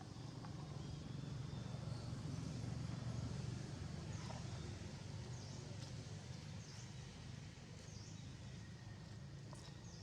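Outdoor ambience: a steady low rumble with short, high chirping calls repeating roughly once a second from about four seconds in.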